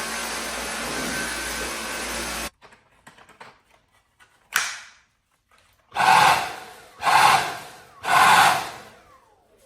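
Dyson V8 cordless stick vacuum running steadily on max mode, cutting off abruptly about two and a half seconds in. After a few faint clicks and one short sharp noise come three brief bursts of noise about a second apart, each fading away, and a falling whine near the end.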